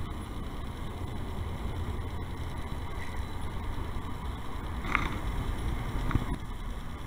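Steady low rumble of outdoor background noise, with two short faint sounds about five and six seconds in.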